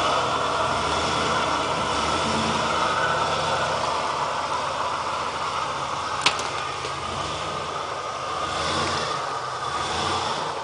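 GMC pickup truck's engine running steadily at low speed as it crawls over a rough trail, with one sharp click about six seconds in.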